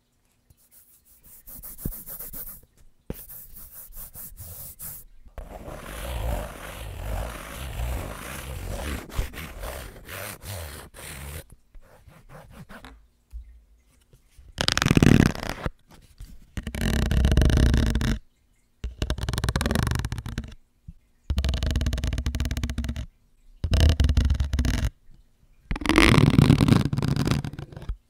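Table-tennis paddle rubbed and scraped against a microphone: a soft scratchy rubbing at first, then about six loud rumbling scrapes of one to two seconds each in the second half.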